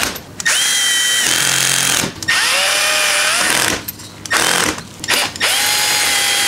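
Cordless power driver with a right-angle attachment running in short bursts, driving medium-length T25 Torx screws into the front bodywork of a BMW R1250GS. About four runs with brief pauses between them, the whine rising in pitch as each one spins up.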